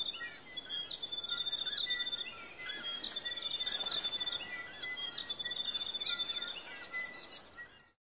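Forest birds calling and chirping over a high, even trill that comes four times, each about a second and a half long. The sound cuts off suddenly near the end.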